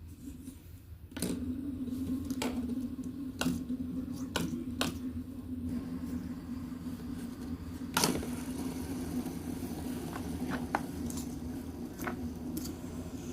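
Fidget toys being handled: irregular sharp clicks and soft squishy pops. A steady low hum comes in with a click about a second in and carries on.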